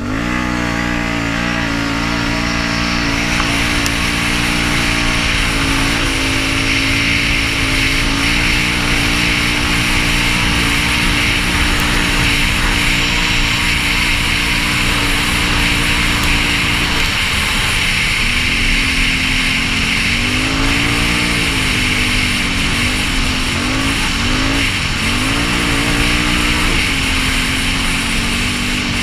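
Can-Am Renegade 850 ATV's V-twin engine, fitted with a Yoshimura exhaust, climbing in pitch at the start and then running steadily at trail speed. Later the engine pitch dips and rises several times, all under a steady hiss.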